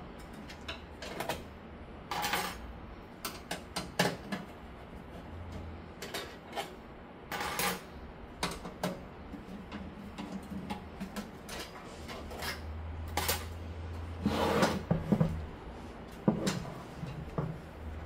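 Irregular clicks, knocks and short scrapes of metal and plastic PC parts being handled and fitted together: a vertical GPU mount bracket being test-fitted into a computer case.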